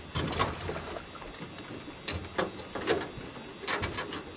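Several short knocks and clicks at irregular intervals over a low background hiss.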